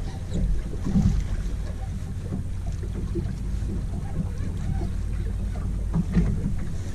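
Wind buffeting the microphone in an open fishing boat, a steady low rumble with gusty rises and falls.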